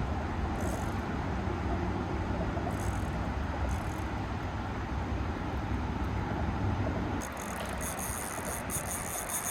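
Steady low rumble and rushing noise, typical of wind buffeting the microphone outdoors. About seven seconds in, a hiss with rapid clicking comes in over it.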